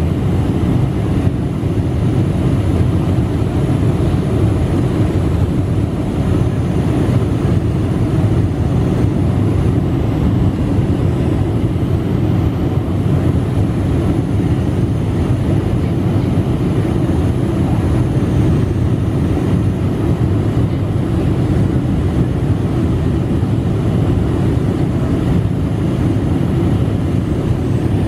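Boeing 747 cabin noise on approach with flaps extended: a steady roar of engines and airflow, with a faint high whine above it.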